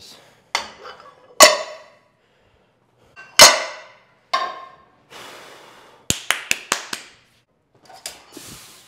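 Iron weight plates being loaded onto a Smith machine barbell: two loud metal clangs that ring on, with scraping as plates slide onto the sleeves, then a quick run of sharp metal clicks about two thirds of the way through.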